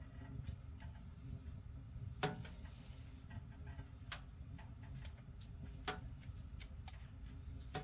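Irregular sharp clicks and pops over a steady low rumble, the loudest clicks coming roughly every two seconds.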